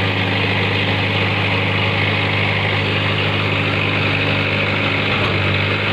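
Kagumi crawler carrier's engine running steadily at an even speed while its hydraulic dump bed tips up.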